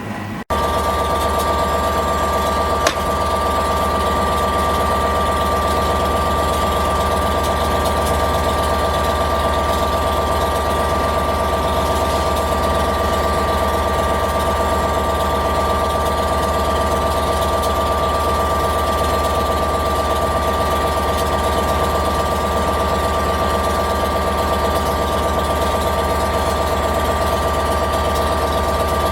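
HST (InterCity 125) power car diesel engine idling steadily: a low, even hum with a steady high whine over it. A brief click about three seconds in.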